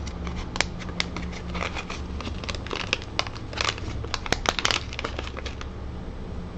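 Small plastic accessory packaging, likely holding the printer's micro SD card and USB reader, being handled and opened. It gives irregular crinkles and clicks, thickest from about three and a half to five seconds in.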